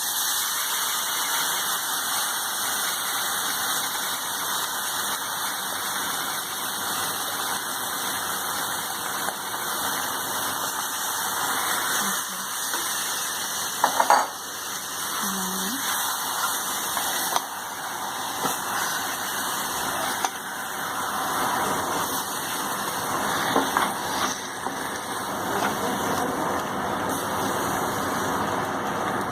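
Marinated chicken pieces sizzling steadily in hot oil with whole spices, with a few knocks of a spoon against the pan as it is stirred.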